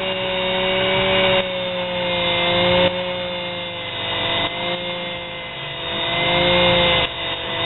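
Small sewing-machine motor spinning a diamond grinding wheel with a steady whine, while a steel welding rod is held against the wheel to grind a sharpened tip. The grinding noise swells and breaks off several times as the rod is worked against the wheel.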